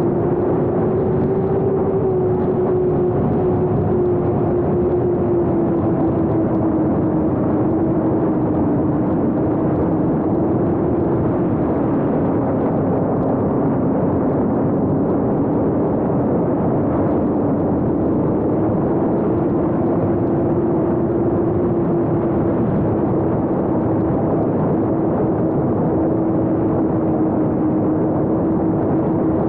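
A 7-inch FPV quadcopter's brushless motors and propellers whirring steadily in flight, one held hum that drifts gently up and down in pitch with the throttle, with rushing air noise underneath.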